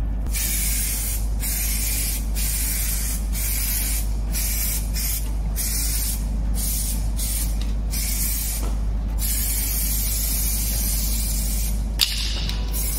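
Aerosol can of plastic bumper texture coating hissing in short repeated spray bursts about once a second, then in a longer continuous spray. A sharp click about twelve seconds in.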